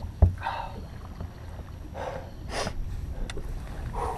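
Steady low wind rumble on the microphone, with a sharp thump about a quarter second in and a few short rushing noises.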